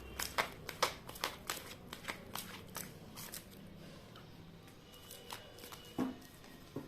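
A deck of reading cards being shuffled by hand: a quick run of crisp card flicks for the first three seconds or so, thinning out, then a couple of single taps near the end as the deck is squared or a card is laid down.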